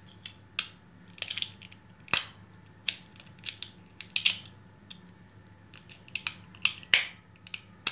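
Fingernails clicking and scraping at a small plastic glitter container whose lid is stuck, in irregular sharp clicks and short rustles over a faint steady hum.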